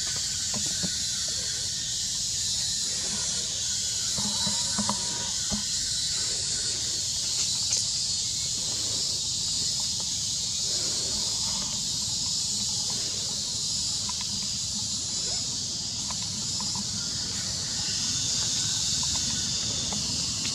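Steady, high-pitched chorus of forest insects, a continuous even hiss.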